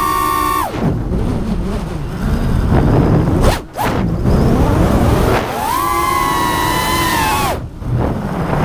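A 5-inch FPV quadcopter's brushless motors (Rotorgeeks 2204 2300kv on HQ 5040 triblade props) heard onboard, their high whine dropping as the throttle is cut under a second in, leaving a low rumble of wind and prop wash. The whine swings back up about halfway through and falls again near the end.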